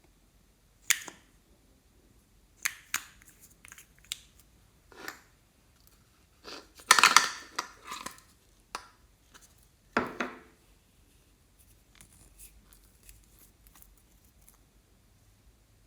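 Close-up handling of small plastic items and packaging: scattered sharp clicks, a loud crinkling, tearing burst about seven seconds in, and a heavier knock about ten seconds in, followed by faint small ticks.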